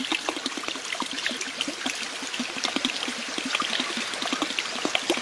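Water trickling and splashing steadily into a small pond, a constant patter of small splashes and drips.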